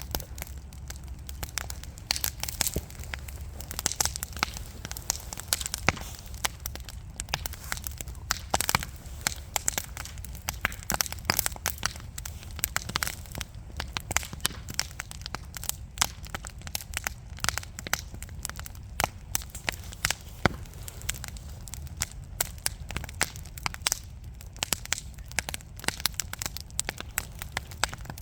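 Wood fire burning in a fireplace, crackling and popping with many irregular sharp snaps over a low steady rumble of the flames.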